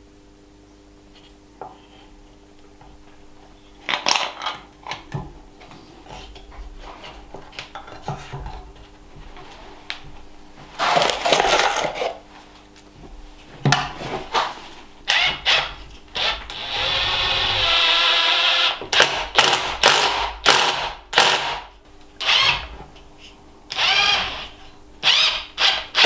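Power drill running in short trigger bursts, with one steadier run of about two seconds near the middle, as it drills or drives screws into wood.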